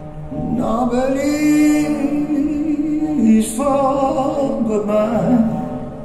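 Music playing over a hi-fi loudspeaker system: a man sings long, held, wordless notes that slide in pitch, over a quieter accompaniment.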